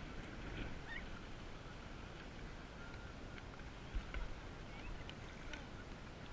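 Steady wind and water noise around a kayak on open water, rumbling on the camera's microphone, with a low thump about four seconds in and a few faint short chirps.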